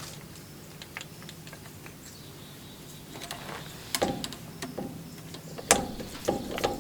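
Screwdriver and metal fittings working on a carburetor fuel line: light clicks and scrapes, with sharper ringing clinks about four seconds in and again near six seconds.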